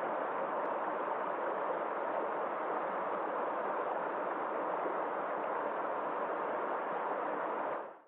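A small mountain stream rushing and splashing over rocks: a steady, even rush of water that cuts off abruptly just before the end.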